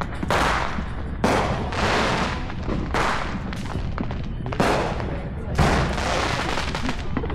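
Neighbourhood fireworks going off: a string of sharp booms about one to one and a half seconds apart, each followed by a long echoing roll, over a constant low rumble of more distant bursts.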